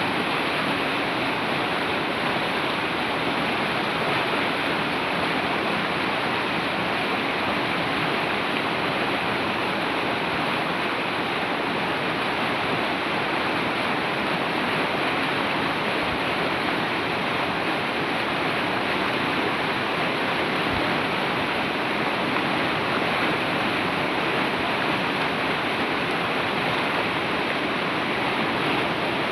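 Fast-flowing river water rushing over rocks, a steady, dense roar that doesn't change.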